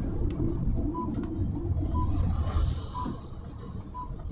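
Greenwich Time Signal pips on BBC radio over the car's speakers: four short high beeps, one a second, counting down to the hour. Under them is the steady low rumble of the car on the road, heard inside the cabin.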